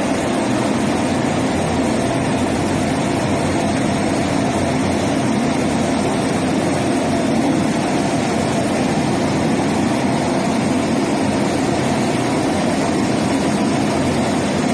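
Turboprop engines of a twin-engine commuter plane running steadily as it taxis on the ground, a loud, even drone.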